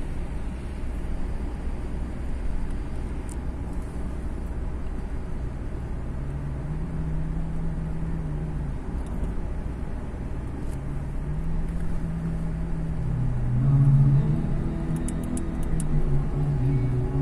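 Car driving on a highway, heard from inside the cabin: a steady low rumble of engine and road noise, with a humming drone that comes and goes and is loudest about two-thirds of the way through.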